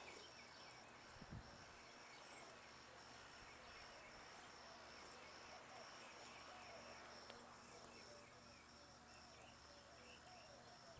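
Faint outdoor background: a steady high insect drone with scattered distant bird chirps.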